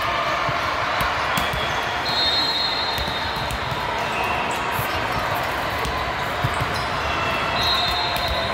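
Busy gymnasium din: a steady murmur of voices, with balls bouncing on the hardwood floor as scattered low thuds and occasional high squeaks of sneakers on the court.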